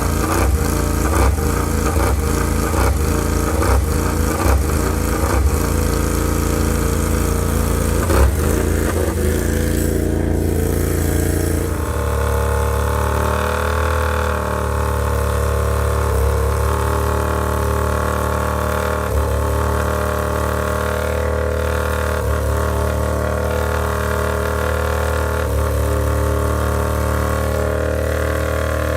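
MotoGP racing motorcycle engine running: an uneven, pulsing note for about the first twelve seconds, then held at a steady pitch.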